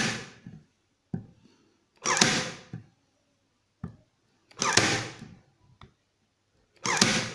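Bosch PTK 3.6 LI cordless electric stapler driving staples into a softwood board, one shot about every two and a half seconds. There are three full shots after the tail of one at the start, each a sharp burst that dies away within a second, with a light click shortly before each as the tool is set down on the wood.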